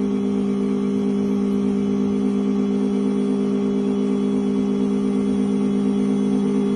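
Electric key-cutting machine motor running at a steady pitch, cutting a new key blade to code.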